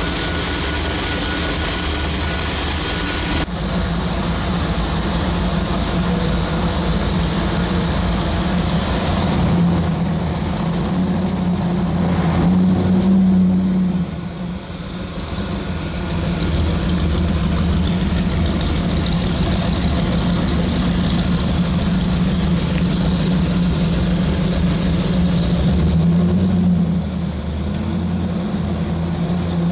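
Ram Jet 502 big-block V8 in a custom 1956 Ford panel truck running steadily as the truck drives slowly, swelling a little louder about twelve seconds in before dropping back.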